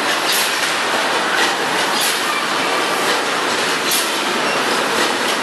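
Automatic detergent packaging line running: a steady, loud mechanical clatter, with a short hiss three times, about two seconds apart.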